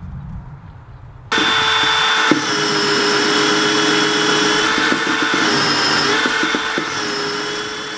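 Power drill driving a hole saw through a locker panel, starting abruptly about a second in and running steadily with a high whine over the cutting noise, easing off slightly near the end.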